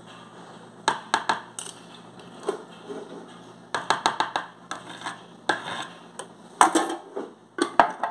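A spoon scraping and clinking against the inside of a glass jar as coarse salt is scooped out, in several short bursts, with the jar's lid being put back on near the end.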